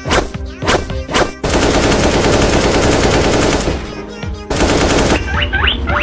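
Cartoon sound effects: a few sharp whacks, then a long rapid-fire rattling burst lasting about two seconds, a shorter burst after a brief lull, and quick squeaky rising glides near the end.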